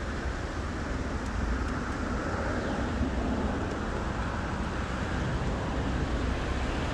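Steady rushing of the fast, flood-swollen Moselle river, with a low rumble underneath.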